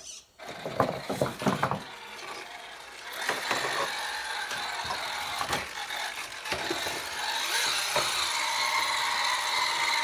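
Redcat Gen 8 RC crawler's electric motor and geartrain whining steadily under load as it crawls, growing a little louder near the end. Sharp knocks of the tires and chassis on rock come in the first two seconds.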